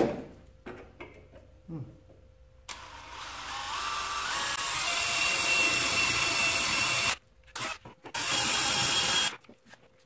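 DeWalt cordless drill boring a pilot hole through a snapped-off bolt so that an easy-out extractor can be driven in. One long run of about four seconds, a few short blips, then a second run of just over a second.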